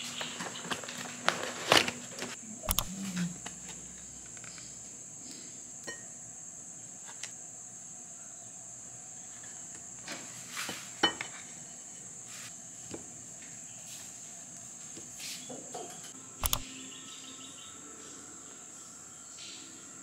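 Rustling and tapping as a cardboard pastry box and its plastic strap are handled and opened, loudest in the first few seconds, then a few isolated soft clicks, all over a steady high-pitched whine.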